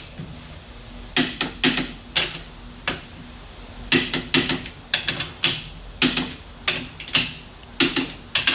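Hammer knocking the pressed-in wheel studs out of an axle shaft's flange: a run of sharp metal strikes at irregular spacing, roughly two a second, often in quick pairs or threes.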